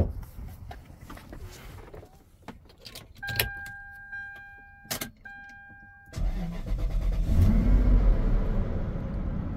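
Lexus LS400's 4.0-litre V8 being jump-started from a lithium jump pack on a dead battery: a few clicks of the door and keys, then a steady two-note dashboard warning chime. The engine catches at about six seconds in, revs up briefly and settles into a steady idle.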